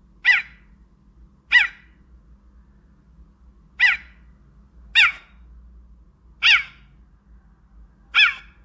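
Recorded animal calls: six short chirps, each sliding down in pitch, spaced irregularly a second or two apart, over a faint low hum.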